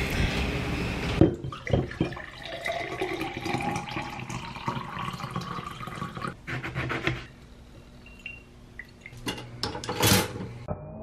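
Steady gym machine noise for about a second, then water pouring from a filter pitcher into a glass, its pitch rising as the glass fills. Near the end comes one loud click as a toaster lever is pushed down.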